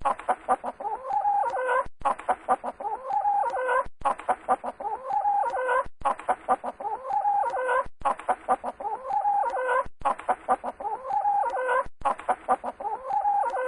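A short animal-like call sequence looped over and over, repeating identically about every two seconds with a brief gap between repeats. Each repeat is a quick run of clicks followed by pitched notes that rise at the end.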